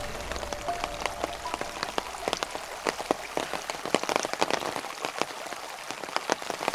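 Rain falling, heard as many irregular sharp drop hits over a steady hiss, with a low rumble in the first few seconds that dies away.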